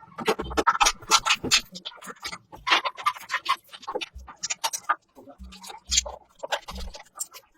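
Irregular clicks, taps and scrapes of hand work with tools and metal parts, with a few dull low knocks in between.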